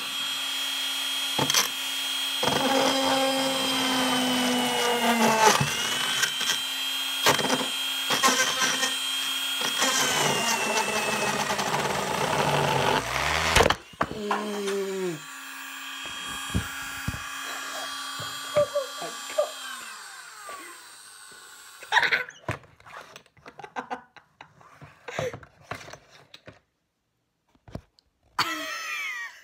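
Cordless Dremel rotary tool running with a steady whine as its drill bit grinds into a plastic toy car, with scraping and knocks against the bench. Near the middle there is a brief clatter and the whine dips, then it runs on more quietly and stops about two-thirds of the way through, leaving scattered clicks and knocks.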